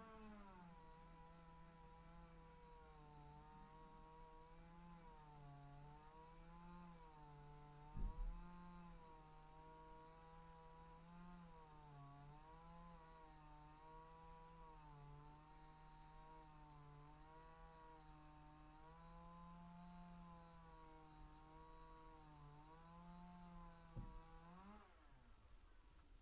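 A two-stroke chainsaw, heard faintly, revs up and runs at high speed while cutting wood. Its pitch repeatedly dips and recovers under load, then drops away near the end. A sharp knock about eight seconds in and another near the end are the loudest sounds.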